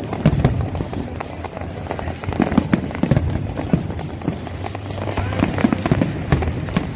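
Fireworks bursting and crackling in irregular bangs, with music playing underneath.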